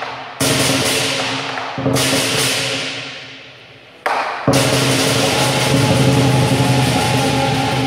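Lion dance percussion of big drum, gong and cymbals: two heavy struck accents, each left to ring and fade, then about four and a half seconds in the ensemble breaks into continuous loud playing.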